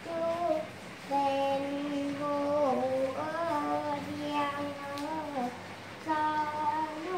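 A young boy singing a Thai khon melody in long held notes that bend and slide between pitches, breaking briefly twice.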